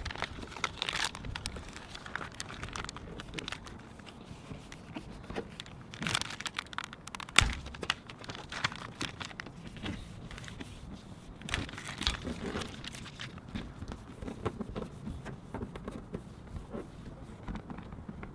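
Eternabond sealing tape being worked onto a van's metal roof by hand: irregular crinkling and crackling of the tape and its peeled-off release backing, with tearing sounds as it is pulled and pressed down, and one sharp knock about seven seconds in.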